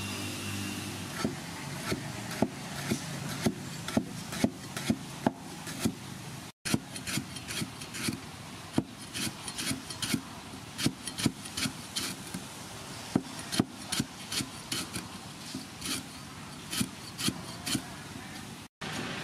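Cleaver slicing a lemongrass stalk into thin rounds on a wooden chopping board: a steady run of sharp knocks, about two to three a second, as the blade strikes the board.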